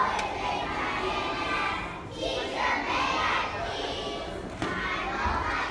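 A group of young children shouting together in unison, in three loud stretches with short breaks between them.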